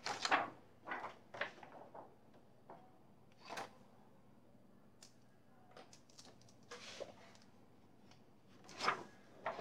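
A few brief scuffs and rubs of hands and painting tools working over painted fabric, the loudest right at the start and another near the end.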